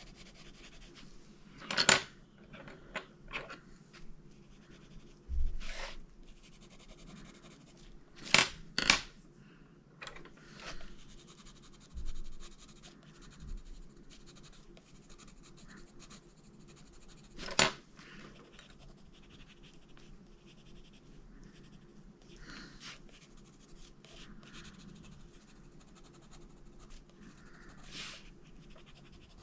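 Faber-Castell Polychromos coloured pencil scratching lightly on a colouring book page. A handful of sharp clicks fall among the strokes, two of them close together about a third of the way in.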